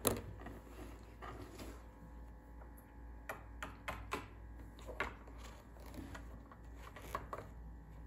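Small plastic toy figures being set down and moved on a wooden tabletop: scattered light taps and clicks, the sharpest one right at the start, a few more spread through.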